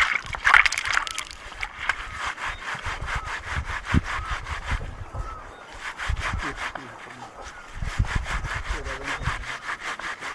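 Fresh piré leaves being ground by hand against a rough river stone, an even, rapid scraping-and-rubbing rhythm of several strokes a second. The leaves are being crushed into a pulp to serve as a plant fish poison.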